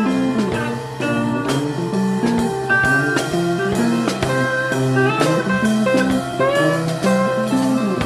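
Rock band playing an instrumental: electric guitar lines with some gliding notes over a steady bass and drum beat.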